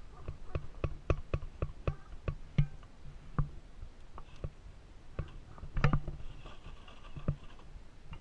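RC rock crawler clambering over concrete rubble: a run of sharp, irregular clicks and knocks as its tyres and plastic body strike the slabs, the loudest clatter about two thirds of the way through.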